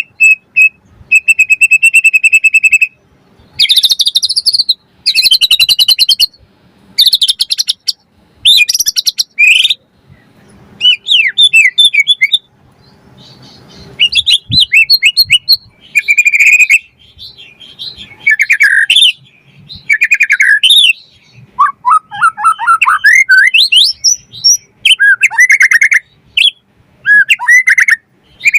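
White-rumped shama (murai batu) singing loudly in a string of short, varied phrases with brief pauses between them: a fast high trill at first, then rapid chattering notes and rising and falling whistles.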